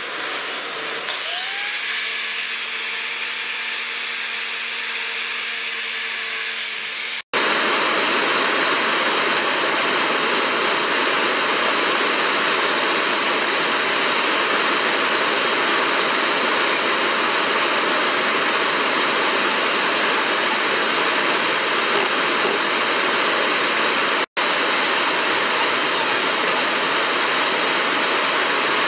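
Handheld corded electric drill running steadily: an even, hissing whir with a faint constant whine. It starts abruptly about seven seconds in and does not change.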